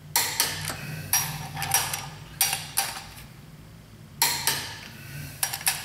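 Torque wrench working the flywheel bolts, ratcheting and clicking up to 94 ft-lb: sharp metallic clicks in short clusters with brief pauses between them.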